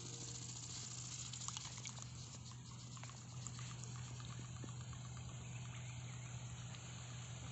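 Small DC motor of a homemade foam toy boat running, its propeller churning water: a faint steady low hum with light trickling and small ticks of water.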